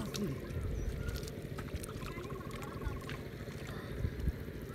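Hands sloshing and splashing in shallow muddy water while groping for fish, with small scattered knocks. A faint, evenly pulsed trill sounds about one and a half seconds in.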